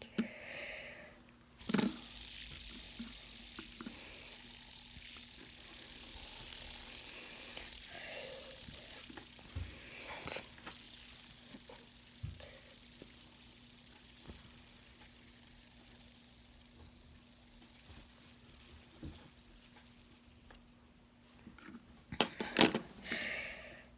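Two fidget spinners flicked into spin about two seconds in, their ball bearings giving a steady high whir that slowly dies away as they slow down. A short clatter of handling follows near the end.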